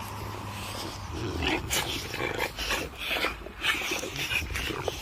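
Several Dogue de Bordeaux dogs tugging and mouthing at a fabric tug toy. The sound is a run of irregular short huffs and scuffles from the dogs.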